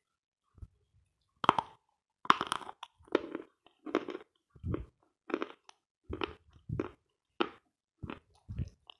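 A person biting into dense, dry lumps of edible chalk ("Sloyka"), with sharp crunches near the start, then steady rhythmic chewing, roughly three chews every two seconds.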